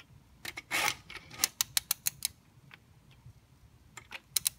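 Ratchet head of a small click-type torque wrench with an E12 socket clicking as it turns an S54 connecting-rod cap bolt, tightening it to the first 5 Nm stage. A short scrape about a second in, then a quick run of about six clicks, and a few more clicks near the end.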